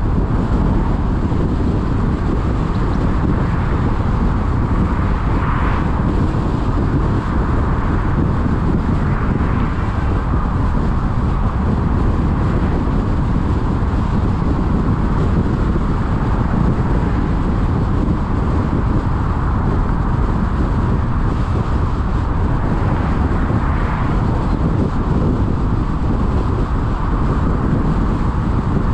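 Steady road noise of a car driving, the low hum of tyres and engine, with a few faint passing swells.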